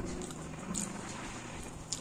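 Close-miked hand-eating sounds: fingers mixing soft rice and curry, with a couple of short wet clicks, one under a second in and one near the end, over a low steady hum.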